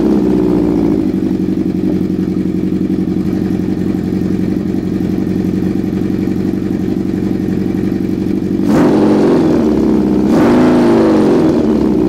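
Honda CB750's air-cooled inline-four idling steadily through an exhaust fitted with homemade baffle inserts and mufflers, then revved twice near the end. The owner finds it still a little too loud.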